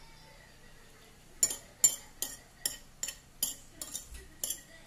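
Metal spoon clinking and scraping against a plate, in a run of sharp strikes about two or three a second, starting about a second and a half in.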